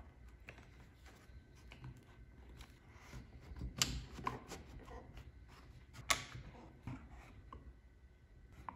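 Faint handling of thin plywood box parts on a workbench, with scattered small clicks and taps as Husky one-handed plastic bar clamps are set and tightened on the freshly glued box. The two sharpest clicks come about four and six seconds in.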